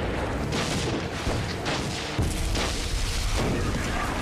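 Several explosions going off one after another, each a sudden boom, over a heavy continuous low rumble.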